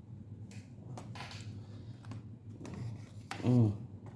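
Small scrapes and light clicks of a laptop RAM module being handled and lined up in its memory slot, with a brief murmured voice about three and a half seconds in, over a steady low hum.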